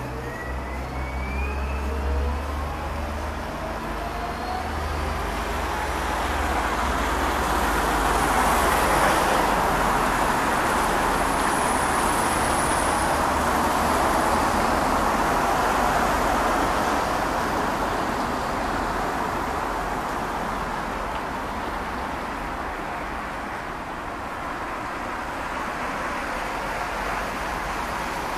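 Road traffic: a passing vehicle's rushing sound swells over several seconds and slowly fades, with a couple of faint rising whines in the first few seconds.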